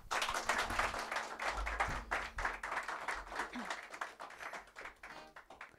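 Small audience applauding, dense clapping that thins out and fades toward the end.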